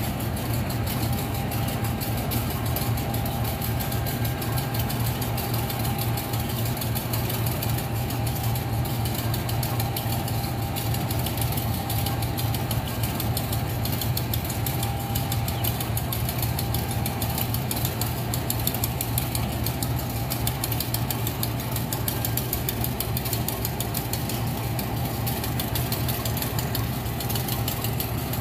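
Diesel-electric locomotive engine idling steadily, a constant low hum with an even throb, as the locomotive is turned on a hand-pushed turntable.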